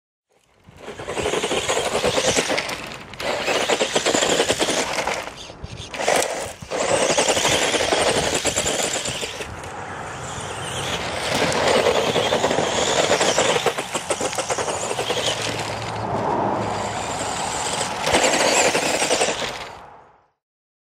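Electric Tamiya Super Hornet RC buggy running hard: a rapid, noisy rattle of motor, gears and tyres that surges and dips with the throttle several times, then cuts off near the end.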